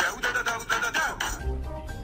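Background music with a high-pitched, fast-bouncing vocal line. About one and a half seconds in it cuts abruptly to a different music track with steady notes and a heavier bass.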